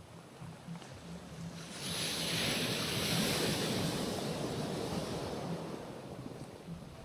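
Sea waves on a rocky shore. A wave breaks and washes in about two seconds in, its hiss swelling, then slowly fading away.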